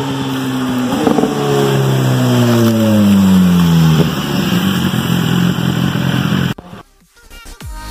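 BMW S1000RR inline-four sportbike with a loud exhaust, slowing down. Its engine note falls, jumps back up with a sharp exhaust crack about a second in, falls again, and cracks once more about four seconds in. It then runs low and steady until it cuts off abruptly near the end.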